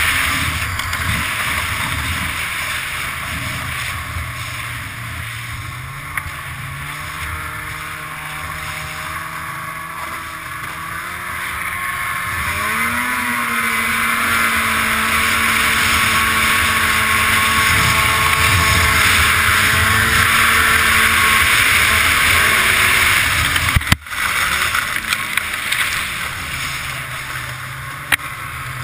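Polaris Indy 500 snowmobile's two-stroke engine running at speed over wind and track noise. Its note climbs about halfway through as it accelerates, then holds steady. It briefly drops out with a couple of knocks about five seconds before the end, then eases off.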